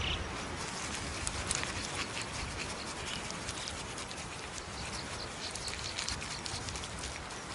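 Outdoor ambience: dry rustling with many scattered light crackles and ticks over a steady hiss.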